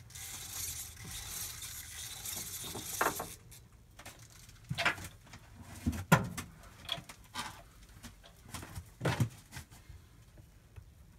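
Hands handling the head of a bench milling machine while fitting a collet chuck. A rustling hiss runs for about the first three seconds, then come a few separate knocks and clicks, the loudest about six seconds in.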